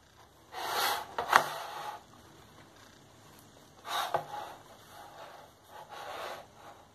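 Pandesal bread rolls being handled and pressed down on a plastic plate: three bouts of rubbing and scraping. The first is the loudest and has a sharp click in it about a second and a half in.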